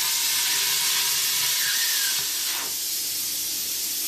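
Plasma cutter hissing steadily as it cuts through the steel bottom of an air compressor tank; the hiss drops a little about halfway through.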